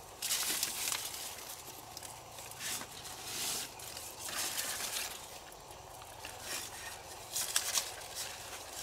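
Leaves and plant stems rustling in short, irregular bursts as they are handled, with a few sharper crackles about seven and a half seconds in.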